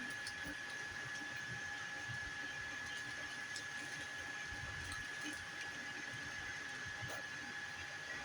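FDM 3D printer running, with a steady high whine over an even hiss.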